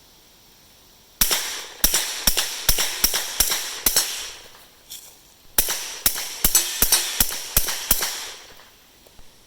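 Glock 19 Gen 2 9mm pistol firing 115-grain supersonic rounds through a SilencerCo Octane suppressor. Two quick strings of about seven or eight shots each, about a second and a half apart. Each shot is followed by a short echo.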